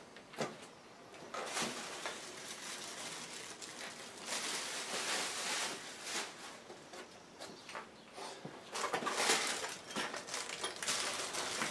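Plastic parts packaging rustling and crinkling as it is handled, with a few sharp clicks of small metal parts being set down on the bench early on.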